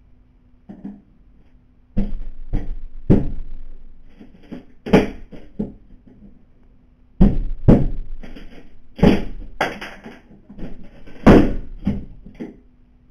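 Irregular heavy knocks and thuds of a house window being forced during a break-in, about eight blows, the loudest near the end.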